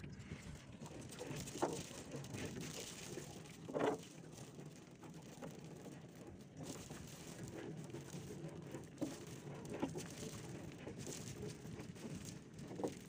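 A wet fish-trap net being handled: water dripping and mesh rustling, with a few light knocks, the loudest about four seconds in.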